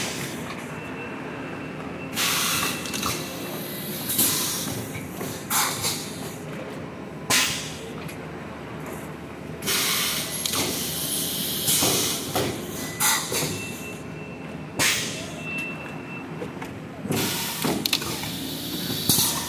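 Thermoforming tray-packing machine running over a steady mechanical hum, with a short burst of hissing compressed air every two seconds or so as its pneumatic stations cycle.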